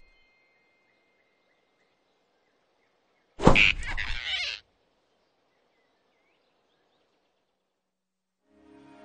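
A sudden cartoon grab sound effect with a short startled squeal from a flying squirrel, sharp-edged and about a second long, about three and a half seconds in.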